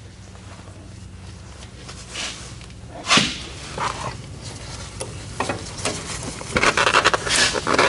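Hands working in a tractor's engine bay: a sharp knock about three seconds in, then scraping and rubbing noises that grow denser near the end, as a rag wipes around the engine.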